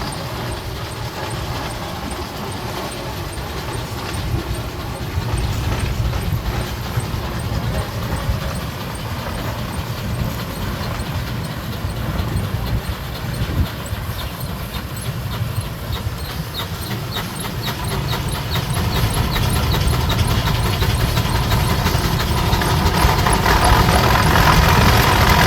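1914 Waterloo single-cylinder steam traction engine running as it moves past in a parade, a steady low rumble that grows louder over the last several seconds.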